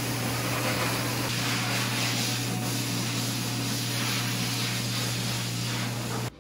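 Dog-wash station's hose blow dryer running, a steady rush of air over a low steady hum, blowing on a wet dog's coat. It cuts off suddenly near the end.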